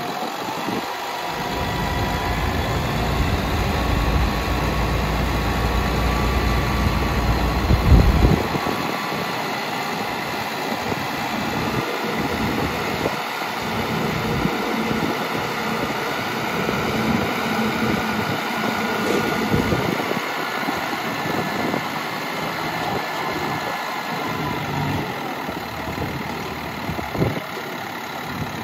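The DT466E inline-six turbo diesel of a 2000 International 4900 dump truck runs at idle while the hydraulic hoist raises the dump bed. There is a brief loud bump about eight seconds in.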